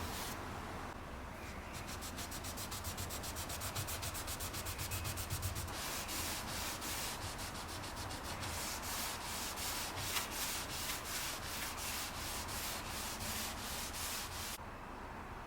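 Hand sanding or scrubbing, in rapid back-and-forth rubbing strokes of about eight a second, which change to slower, fuller strokes of two to three a second about six seconds in. The strokes stop near the end.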